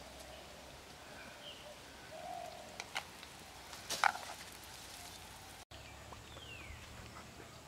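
Faint bird calls over a quiet outdoor background, with a few sharp knocks about three and four seconds in, the loudest about four seconds in, as a ladle strikes the rim of a clay cooking pot while stirring.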